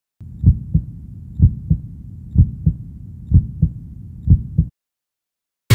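Heartbeat sound effect: five low double thumps, lub-dub, a little under one pair a second, stopping suddenly near the end.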